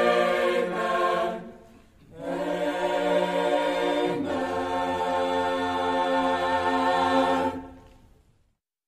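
A chamber choir sings the closing 'Amen' chords: a short chord, a brief break, then a long held final chord whose lowest note moves down about four seconds in. The chord fades away to silence near the end.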